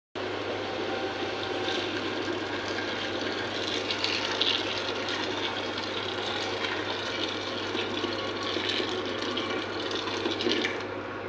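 Liquid rushing steadily in a cooking pot of carrot and chicken shorba, a continuous watery hiss with a faint crackle, over a steady low hum.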